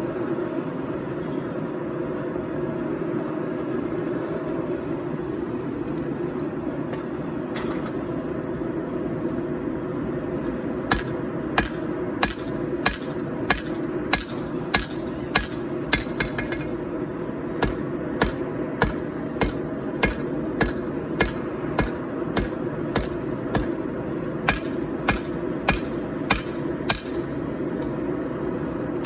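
Steady rushing noise of a forge. About eleven seconds in, hammer blows on hot 4140 steel over an anvil begin, about one and a half a second with a brief pause partway, each with a short ringing clink.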